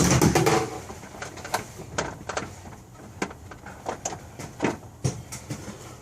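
A loud rattling clatter in the first half second, then scattered sharp clicks and knocks as metal parts and tools are handled.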